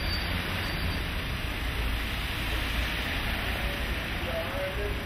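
Steady hiss of a rain-wet street, with a city tram rumbling past close by on its rails.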